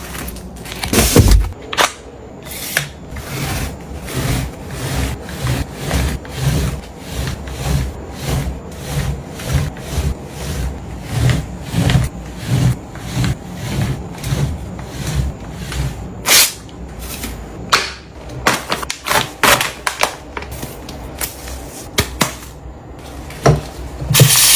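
Household cleaning noises: a steady run of soft knocks and rubbing strokes, about two a second, with a few sharper clicks.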